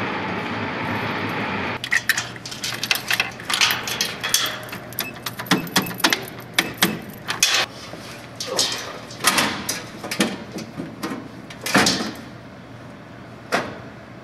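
A metal-fronted snack vending machine being banged and shaken by hand: a fast, irregular run of knocks and rattles for about ten seconds, with one last knock near the end. A steady rushing noise comes before the knocking starts.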